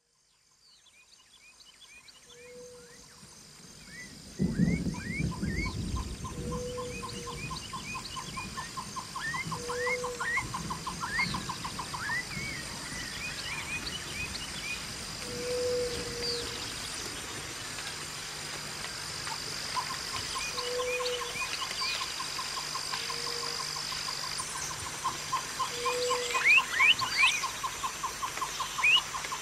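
Birdsong from several birds: many short chirps, long runs of a rapid trill, and a lower short note repeating every few seconds. It fades in over the first few seconds, with a burst of low rumble about four seconds in.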